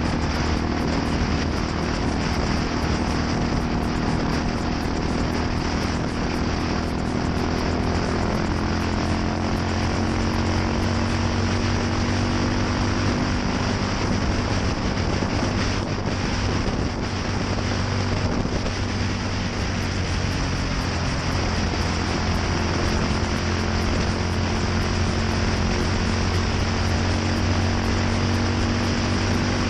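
Yamaha SR400's air-cooled single-cylinder four-stroke engine running steadily through a NitroHeads aftermarket muffler, its pitch drifting gently up and down.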